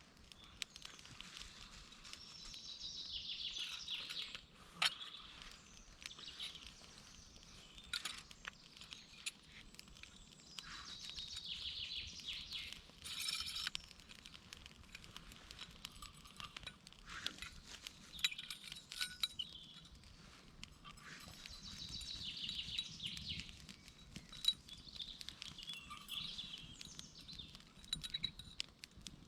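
Campfire crackling, with scattered sharp pops and ticks. High-pitched swells lasting a second or two recur every several seconds.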